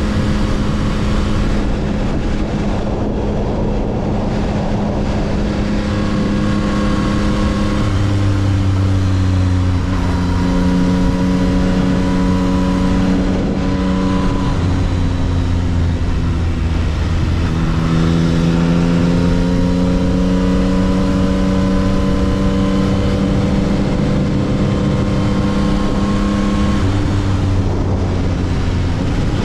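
2022 Yamaha XSR900's 890 cc inline-three engine with stock exhaust, running at steady road speed. Its pitch steps down and back up a few times and starts rising near the end, with wind and road rush on the chin-mounted microphone.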